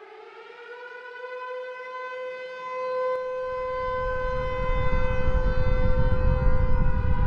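Air-raid (civil defense) siren sound effect: it winds up in pitch at the start, then holds one steady wail that grows louder. A low rumble builds beneath it from about halfway.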